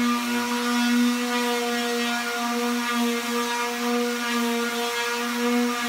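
Corded electric hand sander running on an oil-paint-and-gesso canvas: a steady motor hum with small wavers in loudness as it is worked across the surface.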